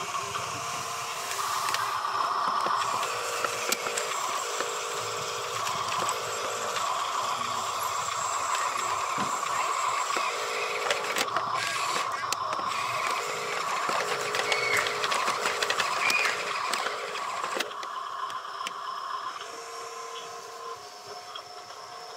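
Huina RC dump truck's small electric motors and gears whirring as the tipper bed works and the truck drives, with scattered small ticks and rattles. The whir falls quieter near the end.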